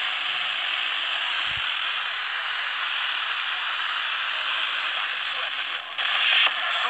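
Steady FM static hiss from a Tecsun PL-310 portable receiver's speaker on 89.8 MHz, with the distant sporadic-E station faded down into the noise. A brief louder burst of the signal breaks through about six seconds in.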